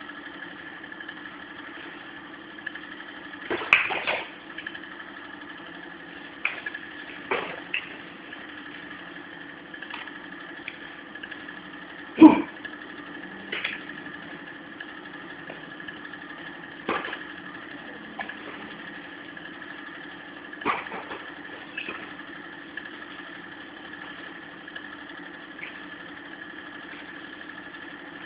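Boxing gloves landing punches in sparring: scattered sharp smacks, about a dozen, the loudest about twelve seconds in, over a steady droning hum.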